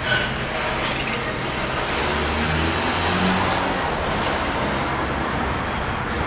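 Steady background rumble and hiss like street traffic, with a brief high squeak about five seconds in.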